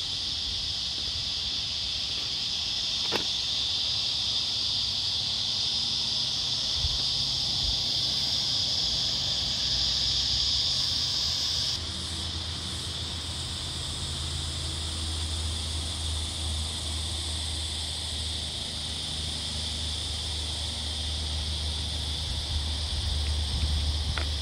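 A steady, high-pitched chorus of insects in the bush, with a low rumble underneath. The sound shifts abruptly about halfway through, and the rumble is heavier after that.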